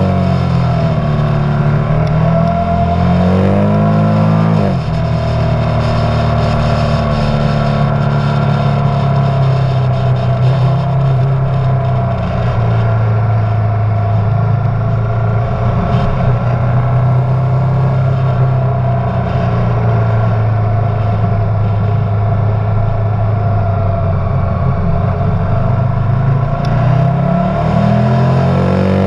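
Motorcycle engine under way: the revs climb and drop sharply at a gear change about four and a half seconds in, hold a fairly steady pitch for most of the stretch, then climb again near the end, over a steady rush of noise.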